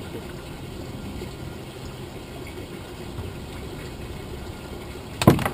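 A steady low motor hum, with one sharp knock near the end.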